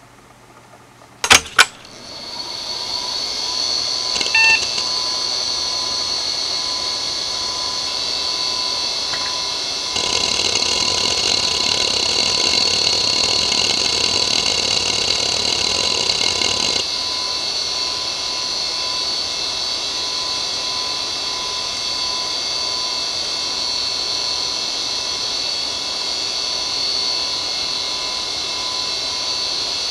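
IBM Travelstar DVAA-2810 2.5-inch hard drive (three platters, six heads): two clicks about a second in, then the spindle spins up to a steady high whine with a fainter lower tone. From about ten to seventeen seconds a louder rushing noise of head activity joins in as the drive is benchmarked, and after that the steady whine goes on.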